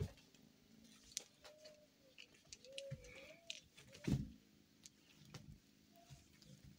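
A kitten playing with a wand toy made from a spring hair-removal wire: light ticks and rustles from the toy and the kitten's paws, and one heavy thump about four seconds in. A soft, wavering low call sounds in the background in the middle.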